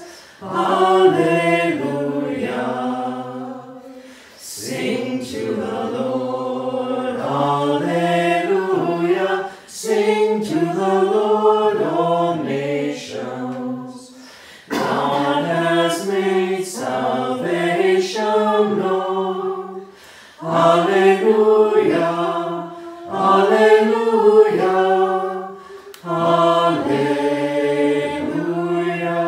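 Unaccompanied singing of a slow hymn at the opening of Mass, a low voice carrying the melody in phrases a few seconds long with short breaths between them.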